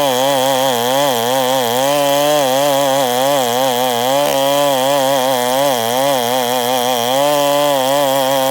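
Two-stroke chainsaw running at high speed while cutting wood, its pitch wavering rapidly up and down under load.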